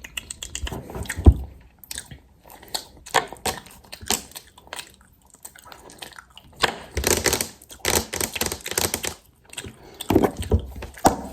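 Close-miked ASMR trigger sounds from a makeup roleplay: irregular taps, clicks and scratchy rustling, with a denser run of scratching from about seven to nine seconds in.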